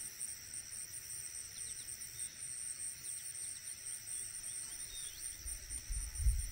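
Insect chorus: a steady high trilling, with a shriller pulsing layer above it. A low rumble and a dull thump come near the end.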